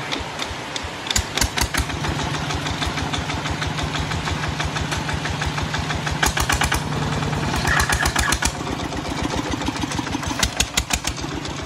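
Kubota ZT155 single-cylinder diesel on a walking tractor running through a tall chrome exhaust stack, with steady, even firing pulses. Short spells of louder, sharper exhaust bangs come about a second in, around six to eight seconds, and again near the end.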